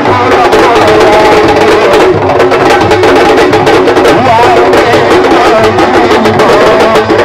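Senegalese sabar drums playing a dense, fast rhythm of sharp strokes for dancing, loud and unbroken, with a wavering melodic line over the drums.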